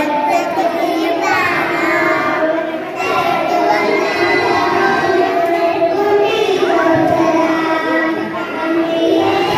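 A small child singing a song into a microphone.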